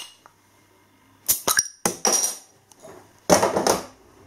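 Bottle opener levering the metal crown cap off a glass beer bottle, giving a few sharp metallic clicks and clinks. There is a short noisy burst about two seconds in and another clatter near the end.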